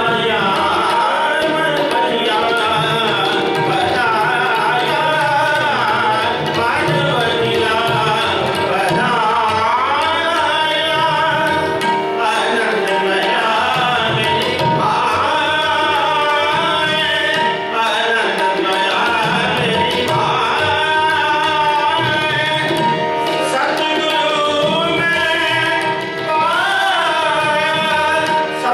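Sikh kirtan: men singing a devotional hymn to two harmoniums, with tabla keeping the rhythm.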